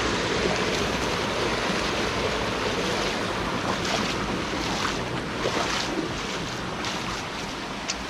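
Waterfall rushing steadily, a continuous roar of falling water with a few short sharper splashes in the second half.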